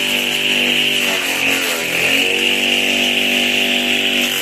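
Small electric motor of a homemade grass chopper running steadily with a high whine, its pitch sagging briefly about halfway through as it takes load from grass being chopped.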